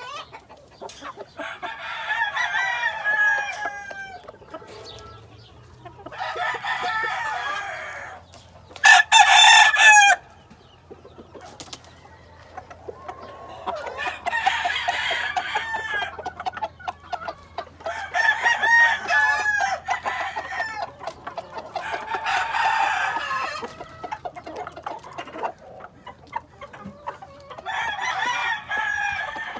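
Roosters crowing again and again, about seven crows a few seconds apart; the loudest comes about nine seconds in.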